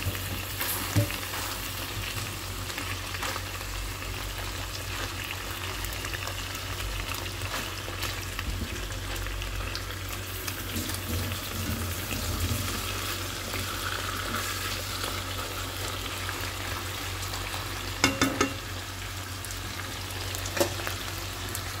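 Marinated chicken pieces sizzling steadily in hot oil in a frying pan, with a few clicks of tongs against the pan as the pieces are turned, twice near the end.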